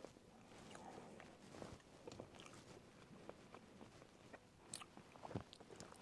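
Faint close chewing and crunching of fried fish and fries, with small scattered clicks and a couple of sharper clicks about five seconds in.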